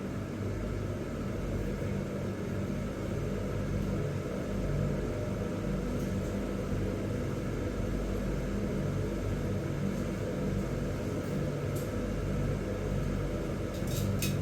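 Steady low mechanical rumble with a hum, like an engine or motor running, with a few sharp clicks near the end.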